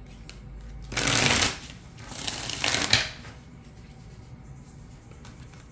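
Tarot deck being shuffled by hand: two bursts of shuffling about a second apart, the second ending in a sharp click.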